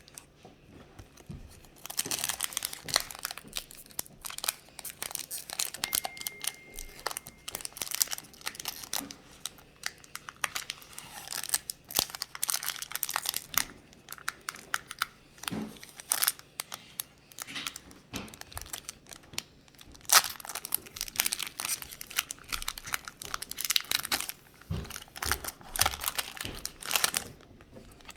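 Foil wrapper of a Pokémon trading card booster pack crinkling and tearing as it is handled and opened by hand, in irregular runs of crackles.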